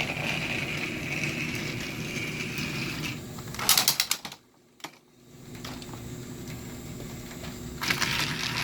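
Battery-powered motorized toy train engine running along plastic track with a steady motor whine. It rattles through the playset's plastic mechanisms in bursts of clicking clatter about three and a half seconds in and again near the end. The sound cuts out briefly between them.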